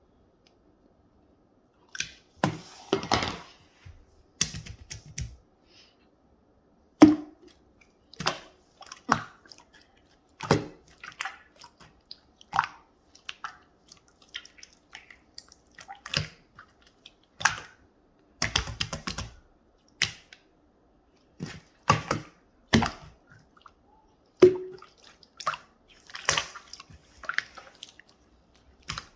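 Clear slime being pressed and squished by hand, giving sharp wet pops and clicks, roughly one or two a second, with short crackling clusters, starting about two seconds in.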